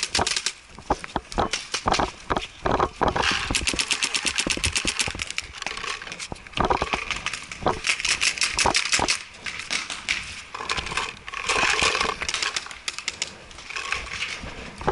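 Paintball markers firing rapid strings of shots in several bursts, each a fast run of sharp pops.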